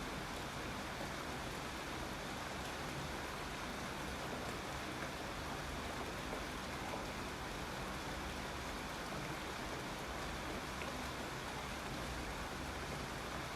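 Steady rainfall, an even hiss of rain with no breaks.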